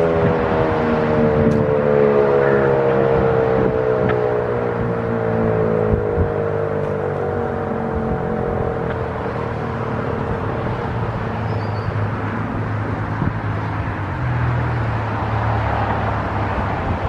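ACA P-15 outdoor warning siren winding down after its one-minute alert: its tone slides steadily lower and fades out over the first eight seconds or so. A vehicle engine hums underneath, running on after the siren has died away.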